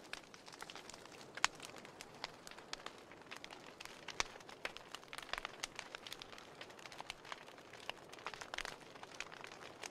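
Wood fire crackling: irregular sharp pops and snaps over a faint steady hiss, the loudest pop about a second and a half in.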